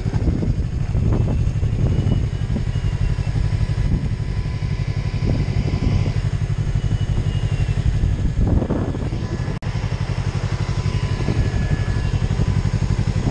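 Yamaha MT-03 motorcycle with an Arrow Pro-Race exhaust idling steadily at a standstill. There is one short click about ten seconds in.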